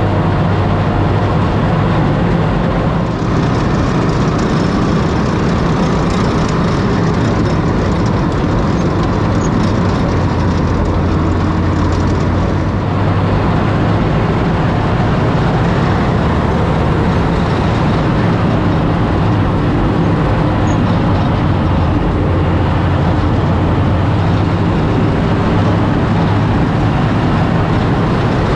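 Continental W670-9A seven-cylinder radial engine of an M3A1 Stuart light tank running steadily under load as the tank drives, heard from the driver's seat.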